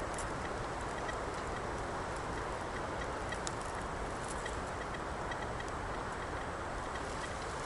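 Steady rushing noise of wind through a forest, with faint, evenly spaced ticks about twice a second.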